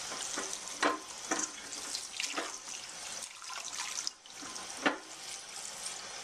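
Kitchen tap water running into a colander of broccoli florets as hands toss and rinse them under the stream. A few brief sharp splashes stand out, the loudest about a second in and again near the end.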